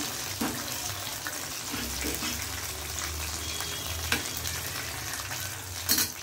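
Breadcrumb-coated fish fingers deep-frying in hot oil in a steel kadai: a steady sizzle. A few clinks of a metal utensil against the pan, the loudest near the end.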